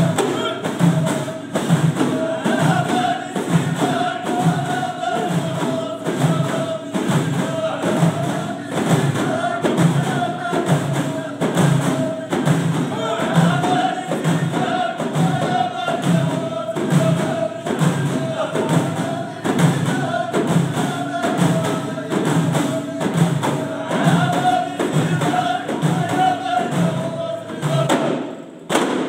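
Ahidous: a group of men and women singing a drawn-out chant together over a steady beat of allun frame drums, about one and a half strikes a second.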